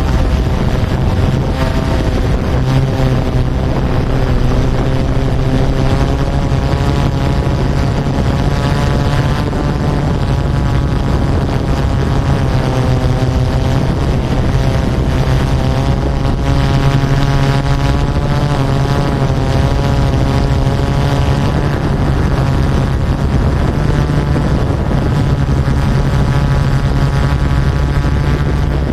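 Yuneec Typhoon Q500 4K quadcopter's motors and propellers buzzing steadily in flight. The pitch of the buzz drifts up and down as the drone manoeuvres.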